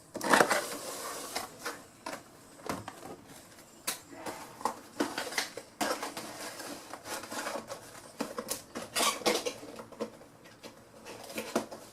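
Bubble wrap being handled and pushed into a cardboard box, crinkling and rustling in irregular crackles and light knocks, loudest just after the start.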